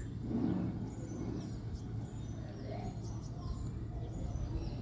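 Small birds chirping in the background: many short, high, falling calls scattered throughout, over a steady low hum.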